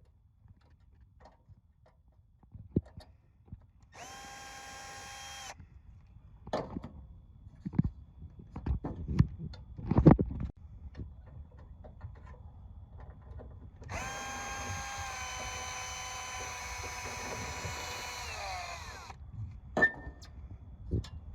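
Power drill running in two spells: a steady whine of about a second and a half, then a longer one of about five seconds that winds down at the end. Scattered knocks and clatter of handling come between.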